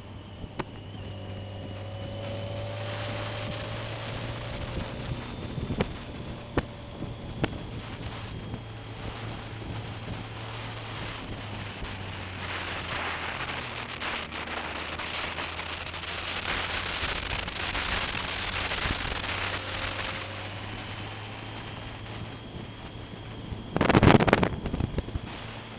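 Motorcycle engine running steadily at cruising speed under wind rushing over the microphone, with a few sharp clicks and a brief loud burst of noise near the end.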